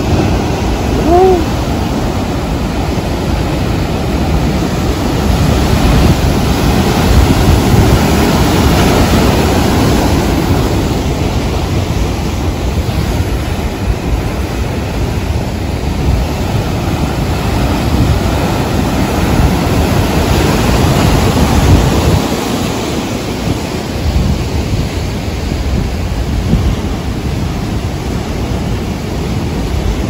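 Heavy surf from a rough sea breaking on rocks and a seawall: a loud, steady roar of churning white water.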